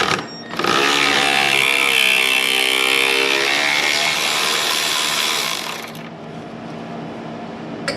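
Cordless power tool running on a 10mm bolt that holds the radiator fan: its motor whirs for about five seconds, its pitch sagging and recovering under load, then stops suddenly.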